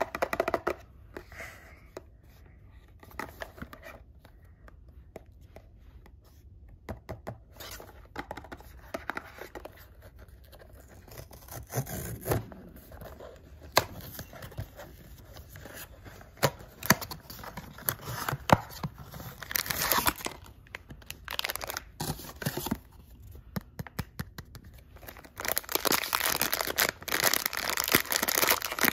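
Small cardboard blind box handled and its flap pried open, with scattered taps, scrapes and paper rustles. From about 25 seconds in, a silvery foil bag crinkles steadily as it is pulled open.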